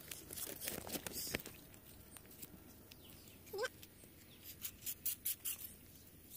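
Coconut leaflets being scraped and torn with a knife to strip out the midribs for a walis tingting broom: a run of short scrapes and crisp ticks. About midway a short animal call rises and falls once.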